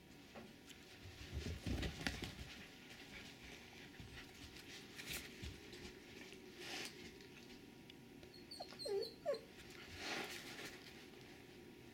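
A few short, high canine whimpers about nine seconds in, among soft thumps and rustling of animals moving on carpet.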